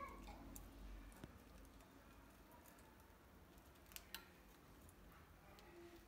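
Near silence with a few faint clicks and taps from budgerigars moving about their cage, including two sharper clicks close together about four seconds in.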